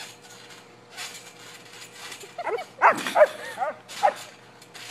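Husky-type dog giving a quick run of short yips and whines that bend up and down in pitch, starting about two seconds in and lasting a couple of seconds.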